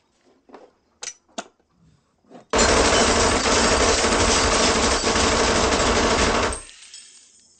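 Micro Uzi submachine gun firing one continuous burst of about four seconds that stops abruptly, spraying bottles and a wall. A few faint clicks come before the burst starts.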